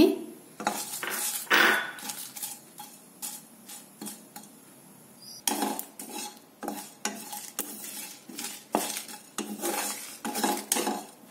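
Wooden spatula stirring and scraping cumin seeds and dried red chillies around a dry nonstick pan as they dry-roast, making irregular taps and scrapes that come thicker from about five and a half seconds in.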